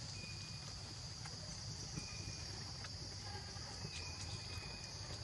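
Steady high-pitched insect drone, with short thin tones repeating every second or so and a low rumble underneath.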